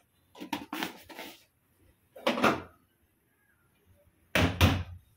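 Spoon stirring chopped raw onions in a steel pot: a few short scraping, rustling strokes, then a louder bump near the end.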